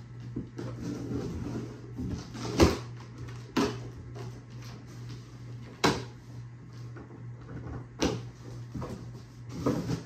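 Cardboard box being opened and unpacked by hand: flaps and packing rustling, with about five sharp knocks and scrapes spread through, over a steady low hum.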